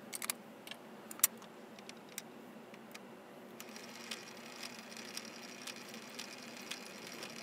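Metal lathe being shifted into back gear: a few metallic clicks and one sharp clack in the first two seconds. From about three and a half seconds in, the lathe runs with a steady hum and a higher gear whine.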